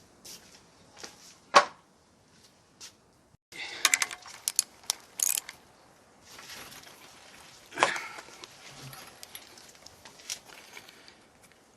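Scattered sharp clicks and metal clinks of hand tools and small parts being handled, with a soft rustle in the middle.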